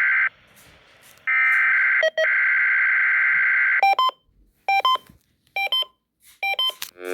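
Emergency-alert SAME header data tones: a buzzing two-tone data burst ends just after the start, and after a second's pause another runs until nearly four seconds in. Then come four short electronic beeps about a second apart, and a loud alert tone begins at the very end.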